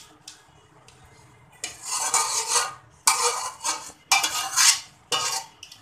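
Drained boiled rice being handled in a plastic colander: four short scraping, rustling noises about a second apart.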